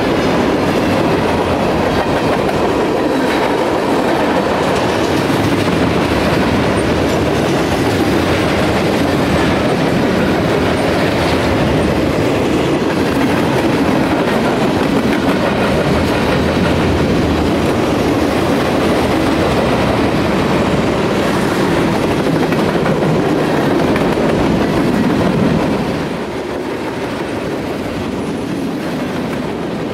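Freight cars of a passing Norfolk Southern train (boxcars, gondolas and tank cars) rolling by close at hand: steel wheels running steadily on the rails with a clickety-clack over the joints. The sound eases slightly near the end.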